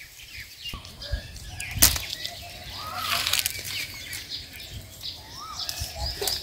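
Leaves and twigs of a lemon bush rustling and crackling as hands push through the branches to pick lemons, with one sharp snap about two seconds in.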